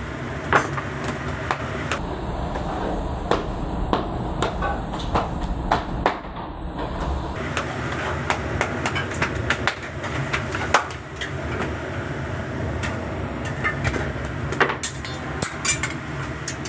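Tandoor oven's gas flame burning with a steady low rumble, with sharp clicks and knocks scattered throughout.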